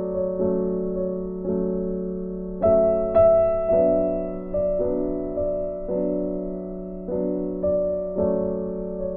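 Background music: a slow piano melody, each note struck and fading, roughly one or two a second, over a held low note.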